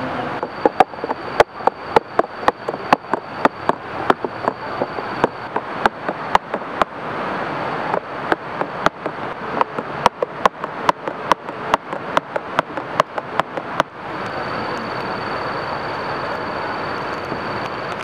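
A drink being stirred in a stainless steel camping cup, the stirrer clinking against the metal rim and sides about three times a second, stopping about 14 seconds in.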